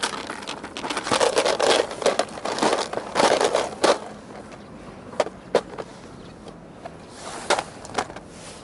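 Hard plastic lure cases clattering and rattling as they are rummaged through in a tackle tray for about four seconds, then a few single sharp clicks as a clear lure case is opened.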